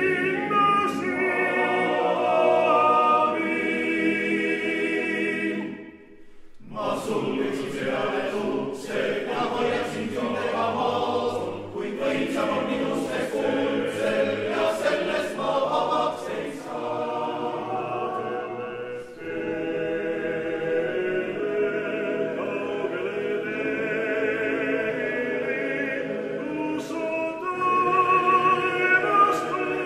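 Estonian male choir singing a cappella in sustained chords. It breaks off briefly about six seconds in, resumes with more clearly articulated words, and swells louder near the end.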